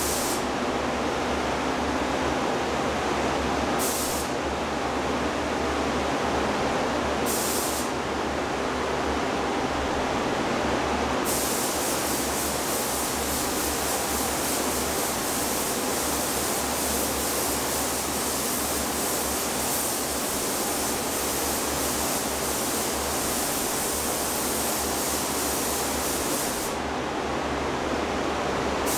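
Compressed-air paint spray gun hissing as blue metallic base coat is sprayed onto a plastic grille. There are short trigger bursts about 4 and 7 seconds in, then one long pass of about fifteen seconds, over a steady background rush of air.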